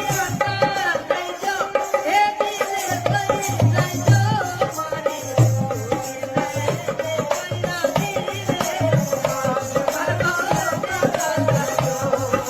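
Rajasthani folk music: a wavering, sliding melody over a steady beat of drum and jingling, rattling percussion.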